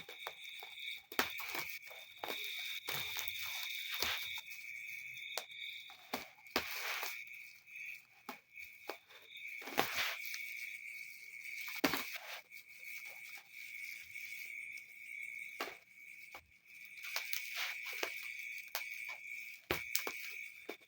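A steady high insect trill continues throughout, with irregular clicks and short rustles of packaging being handled and opened.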